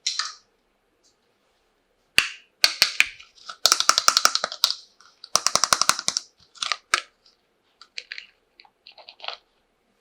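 Small plastic toy kitchen pieces clicking and rattling as they are handled, with a quick run of clattering in the middle and scattered single clicks after it.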